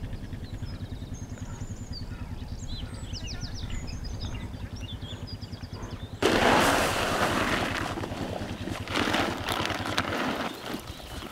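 Quad bike engine idling with a fast, steady low throb, with bird calls over it in the first half. About six seconds in, a louder rough rustling noise starts suddenly and lasts a few seconds, and the engine stops near the end.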